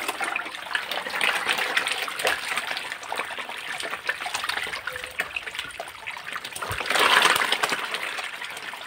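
Water running from a hose into a bucket packed with catfish, the fish thrashing and splashing at the surface in many small irregular splashes. A louder splash comes about seven seconds in.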